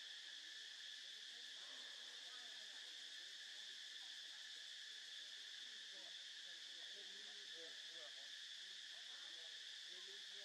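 Faint, steady chorus of insects: an unbroken high-pitched buzz.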